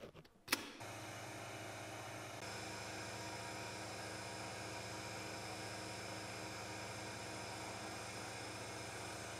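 Rotary power switch on a leather clicker (cutting) press clicks on about half a second in, then the press's motor starts and runs with a steady hum, getting slightly louder a couple of seconds in.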